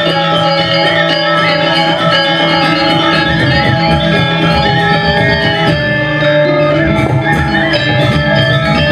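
Balinese gamelan gong kebyar playing dance accompaniment: bronze metallophones and gongs ringing together in a dense, steady texture of many overlapping tones.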